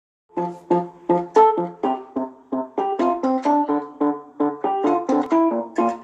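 Samsung Galaxy phone ringtone: a quick melody of piano-like electronic keyboard notes, about three a second, each struck and then fading, starting about a third of a second in.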